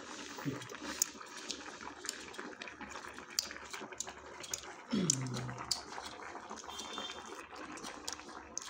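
Hotpot broth simmering on a tabletop burner: a low bubbling hiss with scattered small clicks and pops. About five seconds in, a short falling voice-like sound.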